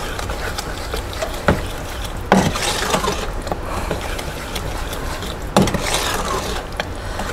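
A spoon stirring and scraping melted butter and sugar around a stainless steel pot, with a few sharper knocks against the pot, over a steady low hum.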